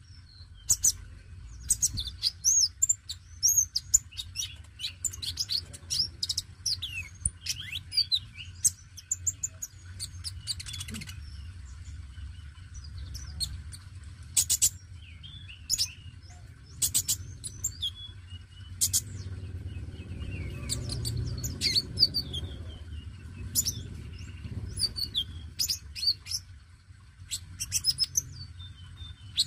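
Male Van Hasselt's sunbird (kolibri ninja, 'konin') singing vigorously: a fast, restless run of high, thin chirps, twitters and sharp ticks, broken by short pauses.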